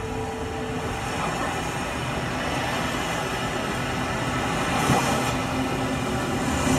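Drum corps show music in a hushed passage: a low held drone with a dense rumbling texture that slowly grows louder, with a brief swell about five seconds in.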